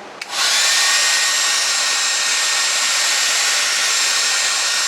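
Conair hair dryer switched on at its high setting: it starts with a click a moment in, then blows steadily with a faint high whine.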